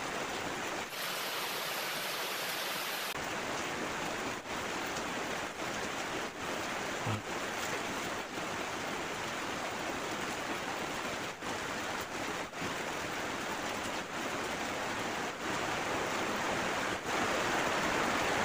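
Steady, even rushing hiss with no clear pitch or rhythm; for about two seconds near the start it turns thinner and hissier.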